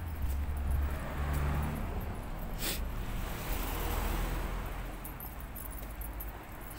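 A road vehicle going past: a low engine hum, then tyre noise that swells and fades, with one sharp click just before the middle.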